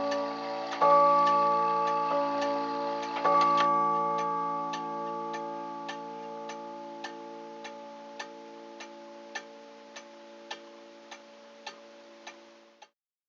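Antique Junghans A27 wall-clock movement striking on steel chime rods: two loud strokes a couple of seconds apart, each ringing on and slowly fading. Under them the escapement ticks steadily, a little under twice a second, until the sound cuts off near the end.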